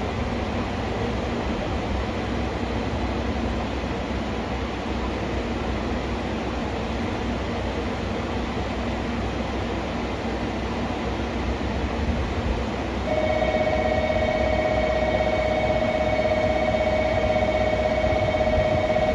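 Railway station platform ambience with a steady low hum, then, about two-thirds of the way through, a steady electronic ringing tone starts suddenly and keeps on, louder than the hum: a platform bell.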